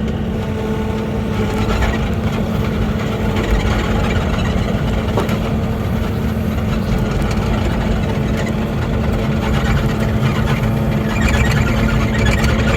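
Mini excavator engine running steadily, heard close up, with a constant hum that grows a little louder near the end.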